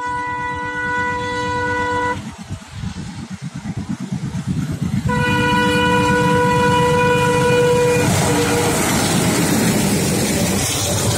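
Diesel locomotive air horn sounding twice over the engines' chugging as the train approaches: a blast of about two seconds, then a longer one of about three seconds. Near the end the passing locomotives and coaches give a loud, rising rumble of wheels on rail.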